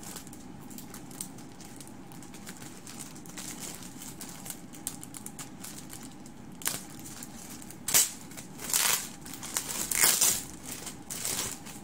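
Plastic mailer bag being torn open and crinkled by hand. It rustles faintly at first, then gives several loud tearing and crinkling bursts in the second half.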